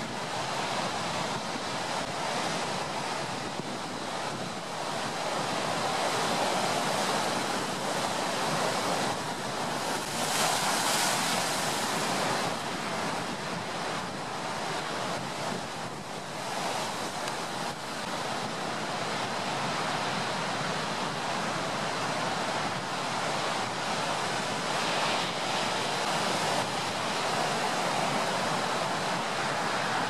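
Stormy sea surf: waves breaking and washing ashore in a continuous rush, with one wave breaking louder about ten seconds in.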